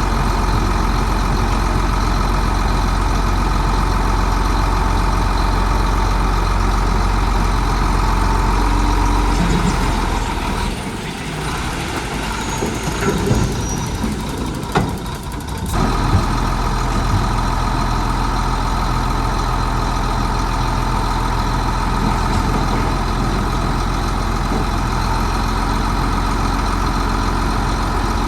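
Heavy diesel earthmoving machinery running steadily. For a few seconds past the middle the low engine hum drops away and some clanks and a sharp knock are heard, then the steady running returns.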